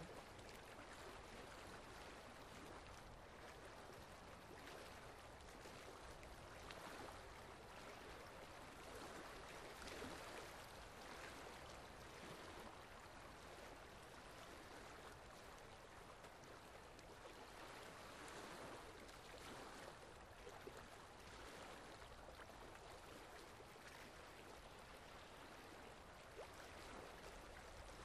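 Faint steady watery hiss that swells and fades a few times, with the faint drips of a leaking tap falling into a concrete sink.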